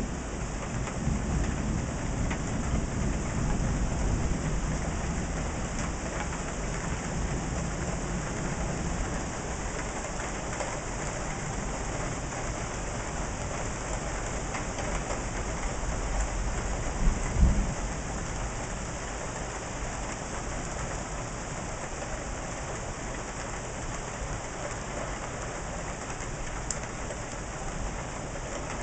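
Steady rain falling through a thunderstorm, with low thunder rumbling over the first few seconds. A brief louder thump comes about two-thirds of the way through.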